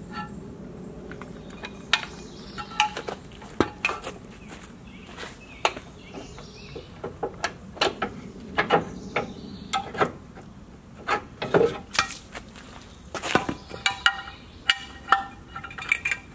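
Irregular metal clanks and clinks, some ringing briefly, as snowplow receiver parts and hand tools are handled and set down.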